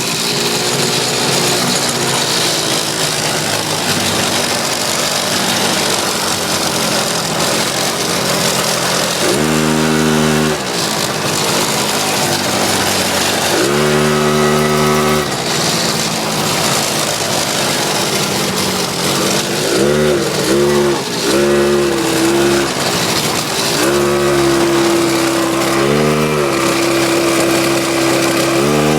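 49cc Cat-Eye pocket bike engine idling and being revved in short blips about ten and fourteen seconds in, then a run of quick revs, then held at a steady higher speed near the end.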